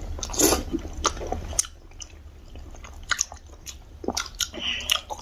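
Close-miked mouth sounds of biting into and chewing pork momo dumplings: irregular wet smacks and small clicks, busiest in the first second and a half.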